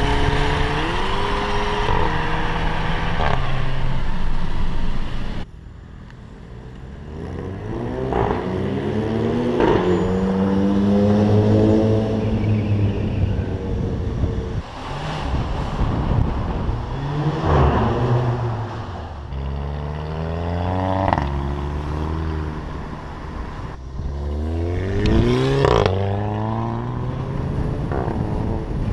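Turbocharged 2.0 TSI four-cylinder of a VW Beetle accelerating hard through the gears on a DSG gearbox. The engine pitch rises over and over, and each upshift is marked by a short, sharp blat from the exhaust, the so-called DSG fart.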